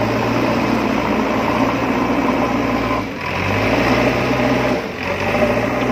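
Steady engine-like drone of a small motor, with two short dips, about three seconds in and near five seconds.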